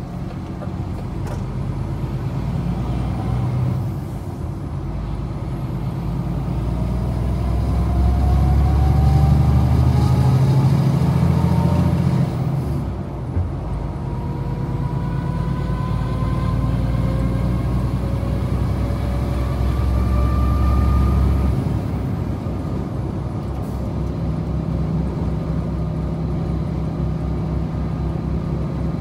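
DAF XF 106's PACCAR MX-13 straight-six diesel pulling under load, its revs climbing, then a gear change about twelve seconds in, then climbing again. About three quarters of the way through the load drops off and it runs on more quietly.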